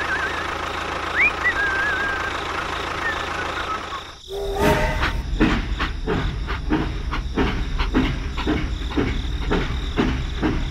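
A steady hum with a few high, bird-like chirps over it. After a short break about four seconds in, a toy steam locomotive runs along a plastic track, with a regular clatter of about two to three clicks a second over a low rumble.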